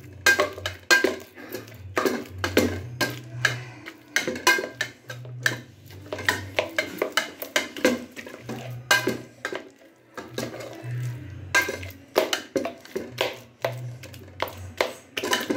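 A kitchen utensil repeatedly knocking and clinking against a pot as boiled raw banana is mashed by hand, in irregular strikes a few per second, with a short lull about ten seconds in.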